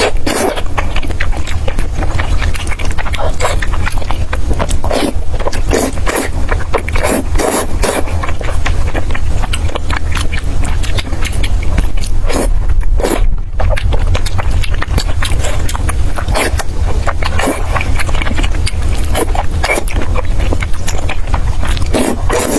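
A person eating wide starch noodles and potato noodles close to the microphone: a continuous run of short, wet slurping and chewing sounds over a steady low hum.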